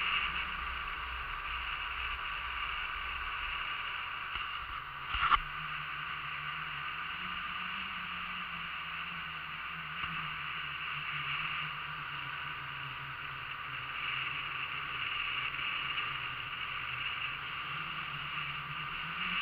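Motorboat underway: a steady drone of engine and water noise with a slowly wavering low hum. A single sharp knock about five seconds in is the loudest sound.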